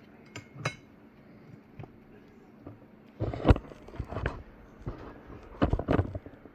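Dishes and utensils clinking and knocking in a kitchen: a few light taps, then two bursts of louder clatter about three seconds in and again near the end.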